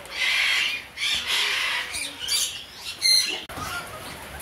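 Pouter pigeons moving and flapping their wings in a wire cage: hissy rustling bursts, and a brief clatter about three seconds in.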